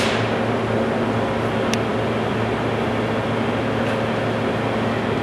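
CNC machine running steadily, a constant hum and hiss, with one sharp click a little under two seconds in.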